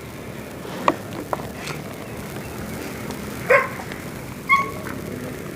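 A dog barking twice, short and sharp, about three and a half and four and a half seconds in, over a low background with a few faint clicks earlier.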